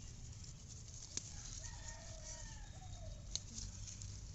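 A rooster crowing once, faintly, beginning about a second and a half in and lasting about a second and a half, its pitch arching and falling. Two sharp clicks come before and after it.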